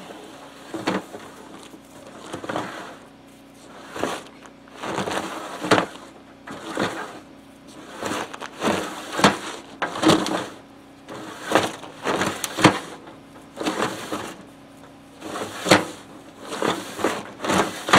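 A rope-tied sack of rocks dragged back and forth through a length of metal stovepipe, scouring soot from the chimney pipe. It gives a series of rough scraping rasps, about one or two a second.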